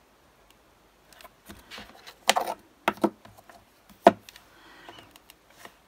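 Round metal magnets picked up and set down onto a magnetic craft board to hold a card panel in place: a string of sharp clicks and knocks with softer sliding between them, the sharpest about four seconds in.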